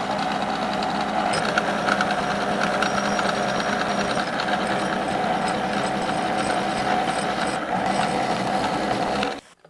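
Milling machine face-milling a copper soft-jaw blank: a steady, loud cutting sound over the spindle's hum, with a constant ringing tone. It stops abruptly near the end as the cut finishes.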